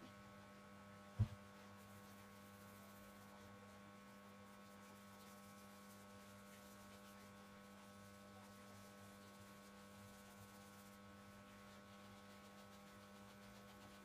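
Near silence with a steady low electrical hum, broken once by a single short thump about a second in.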